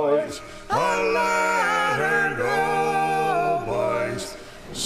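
A voice singing a slow song in long held notes, with little or no accompaniment, a short break between phrases near the end.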